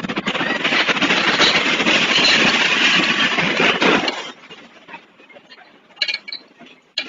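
Loud, dense rattling and clattering, many rapid knocks running together, that cuts off suddenly about four seconds in. Scattered quieter knocks follow.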